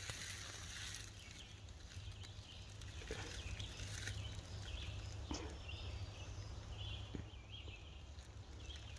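Faint woodland ambience: a steady low rumble with scattered short, faint high chirps and a few soft clicks.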